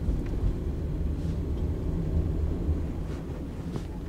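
Interior cabin noise of a 2013 Honda Fit being driven on a snowy road: a steady low rumble of engine and tyres, with a few faint ticks.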